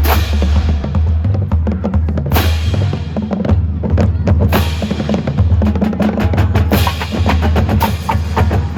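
Marching band drumline playing a drum feature: fast snare and tenor strokes over deep bass drums, with crashes about every two seconds.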